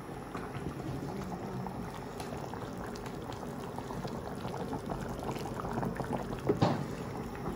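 A large pot of sardine and chicken curry bubbling at a boil while a wooden spoon stirs it, a steady crackling simmer. A short, louder sound comes about six and a half seconds in.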